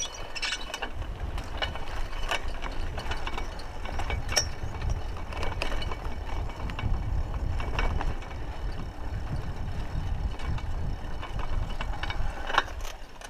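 Raleigh Ascent 26 mountain bike ridden over a rough dirt track: scattered clicks and rattles from the bike's chain and frame over a steady low rumble of tyres and wind on the microphone.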